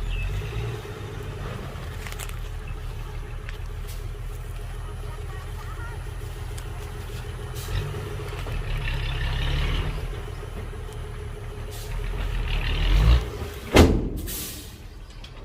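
Heavy diesel engine of earthmoving machinery running steadily, swelling under load twice. Near the end comes a sharp bang, followed by a brief hiss of air.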